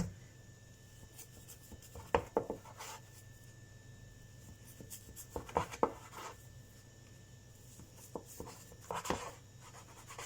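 Rolling pin working a stiff dough on a board: a few short rubbing and knocking sounds, about two seconds in, around six seconds and again around nine seconds, over a faint steady hum.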